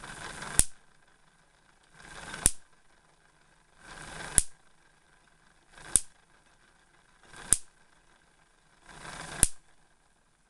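Homemade Wimshurst electrostatic machine throwing sparks across its ball-electrode gap: six sharp spark snaps about every one and a half to two seconds, each preceded by a rising hiss as the charge builds.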